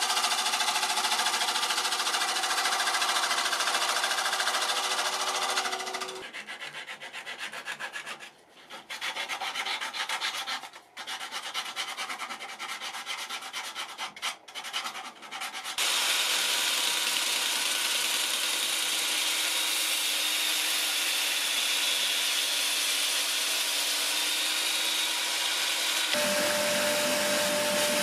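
Wood lathe spinning a spalted ash bowl while a bowl gouge cuts the inside, a steady hiss over the machine's hum. After about six seconds this gives way to a quieter, uneven rubbing of abrasive on the turning wood, with short breaks. About halfway through it becomes a loud, steady sanding hiss, and a new steady whine from the power sanding tool joins it near the end.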